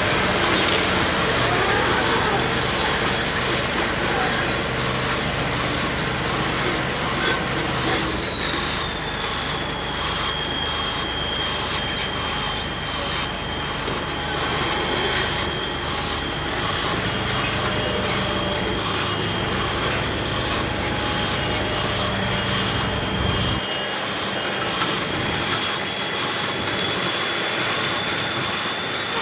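Vibratory sheet piling rig at work, a steady high whine that drops in pitch twice in the first ten seconds over a low hum; the low hum cuts off suddenly about 24 seconds in.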